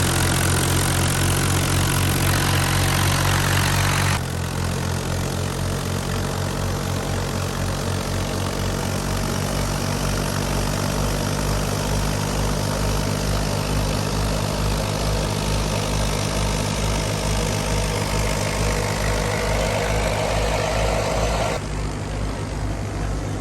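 Old Fiat 480 tractor's diesel engine running steadily. The sound changes abruptly about four seconds in and again near the end, and in the middle stretch there is a low pulsing of about two beats a second.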